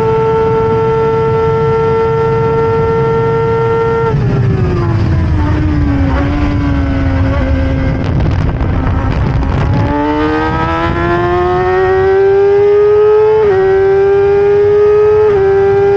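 BMW S1000RR inline-four engine of a Stohr WF1 race car at full throttle, holding a steady high pitch for a few seconds. The pitch then falls away as the car slows for a corner, stays low for a while, and climbs again under hard acceleration about ten seconds in, with two quick gear changes near the end. Wind and road noise run underneath.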